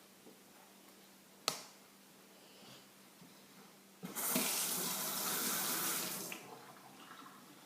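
A single sharp click, then water running for about two seconds, starting abruptly and tailing off.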